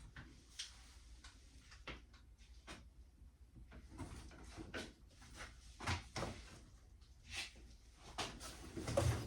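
Scattered light knocks and clicks of objects being handled and set down in a small room, with a louder knock about six seconds in and a cluster of knocks near the end.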